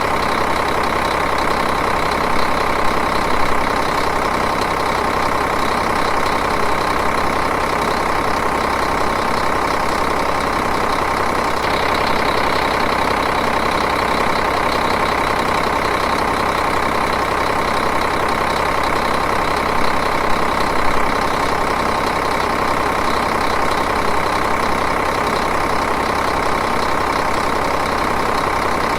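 Diesel engine idling at a steady, even speed.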